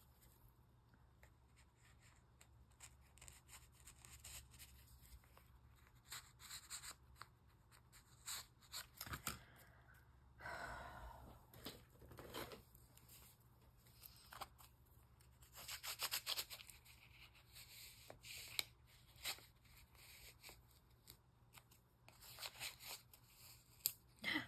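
Faint, scattered rustles, taps and clicks of paper and card being handled and worked, with a small cluster of clicks about sixteen seconds in.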